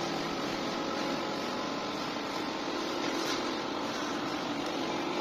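Steady background hum and hiss, with a few faint steady tones and no change in level.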